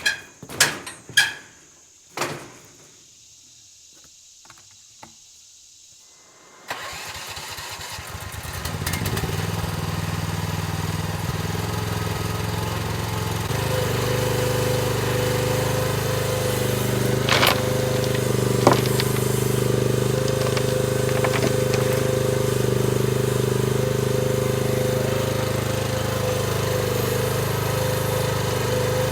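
A few knocks, then about seven seconds in a mini excavator's engine cranks and starts, settling into a steady run. About halfway through it is throttled up to a higher, steady pitch, with two sharp metal clanks soon after.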